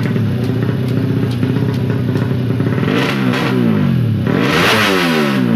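Four-stroke 200cc underbone drag bike engines running steadily at first, then revving hard with quickly rising pitch about three seconds in. The sound is loudest around four to five seconds in, as the revs climb and fall.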